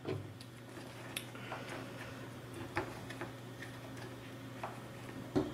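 Scattered light clicks and taps of a small plastic handheld device being fitted into a clear plastic case on a table, with a slightly louder knock near the end, over a low steady hum.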